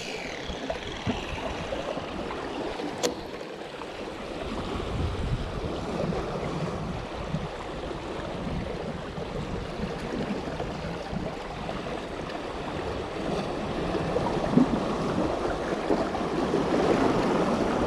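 Sea waves washing against shore rocks, with wind on the microphone; the surf grows louder in the last few seconds. A sharp click at the very start is followed by a brief falling whine, and another click comes about three seconds in.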